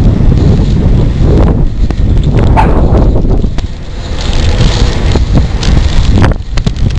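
Wind buffeting a helmet-mounted camera's microphone on a moving road bike, a loud low rumble that eases briefly a little past the middle.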